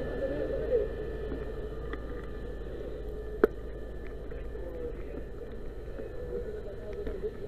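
Steady running hum of a fire engine, with a single sharp knock about three and a half seconds in.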